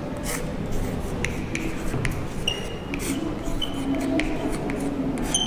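Chalk writing on a blackboard: scattered taps and short scratching strokes as letters are written. A few brief high-pitched squeaks are heard.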